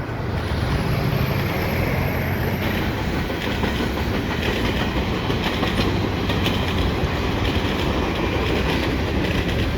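Freight train cars rolling past: a steady rumble of steel wheels on rail, with the clickety-clack of wheels passing over rail joints.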